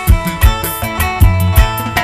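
Instrumental passage of live band music: electric guitar over a drum kit, bass boosted, with a heavy low beat about three times a second.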